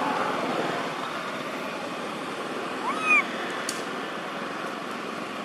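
Steady outdoor background noise, with one short animal call about halfway through that rises then falls in pitch.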